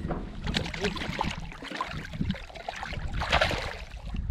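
Water splashing and sloshing in irregular bursts over a constant low rumble, with two louder surges: one a bit after the start and one about three seconds in.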